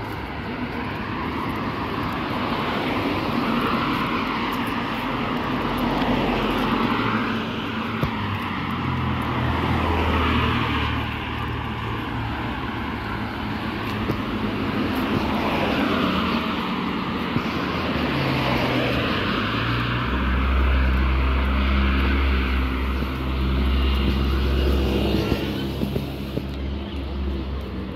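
Traffic on a city street: car engines and tyre noise from vehicles driving by, swelling and fading every few seconds with gliding engine pitches, with a heavier low rumble about three quarters of the way through.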